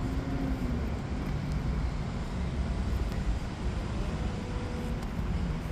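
Steady low rumble of distant vehicle traffic in outdoor city ambience.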